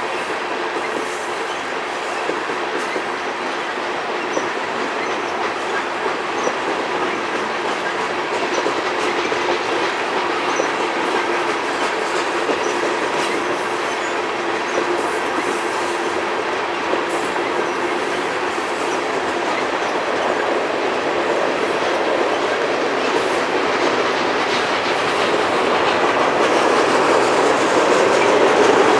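Union Pacific freight train, its grain cars rolling past with a steady rumble and clatter of wheels on the rails, growing gradually louder toward the end.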